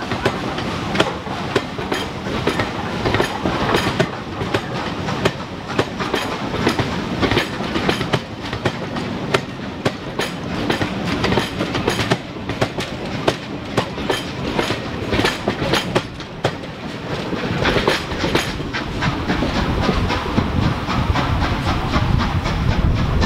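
A train running past, its wheels clattering rapidly over the rail joints with a continuous rumble underneath.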